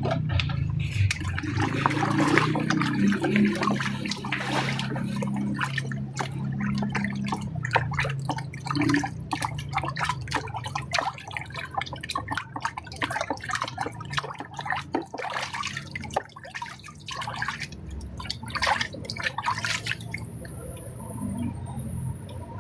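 Water running and splashing, broken by many small clicks and knocks, as water is readied for washing dishes.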